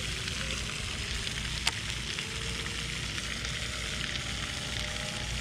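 Wind rumbling on the microphone over a steady outdoor hiss, with one sharp click just under two seconds in.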